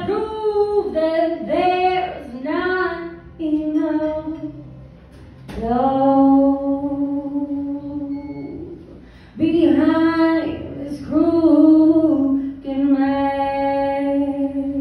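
A woman singing a cappella, unaccompanied, amplified through a microphone and PA speaker. She sings short phrases and then holds a long note about six seconds in, with another sustained phrase near the end.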